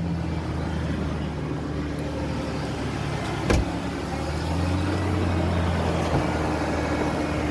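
1998 Ford Ranger's engine idling steadily with the air conditioning on max, with a single sharp clack about three and a half seconds in.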